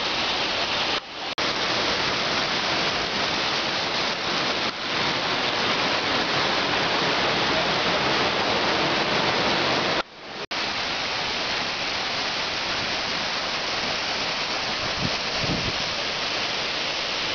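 Steady rushing roar of a waterfall and cascading stream water, cutting out briefly twice, about a second in and about ten seconds in.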